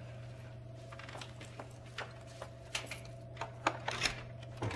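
A steady low electrical hum fills the room, and over it come scattered light clicks and knocks that grow more frequent toward the end as the wooden door of the TARDIS police box is handled.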